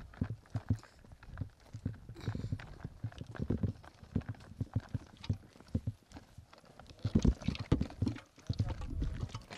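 Footsteps walking, a run of short knocks a few a second, loudest about seven seconds in.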